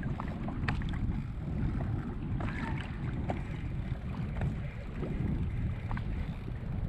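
Wind buffeting the microphone as a steady low rumble, with water lapping against a kayak hull and scattered faint ticks.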